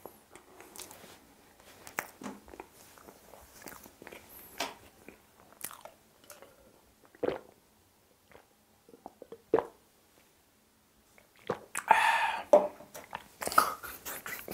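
Close-miked eating sounds: chewing and swallowing with scattered short wet mouth clicks, then a few faint gulps of milk from a cup during a quieter stretch, and a louder burst of noise about twelve seconds in.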